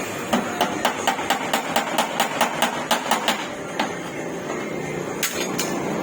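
Hammer tapping on a car's steel body panel in quick succession, about four blows a second with a metallic ring, then a few scattered blows. This is panel beating during body repair, over a steady workshop hum.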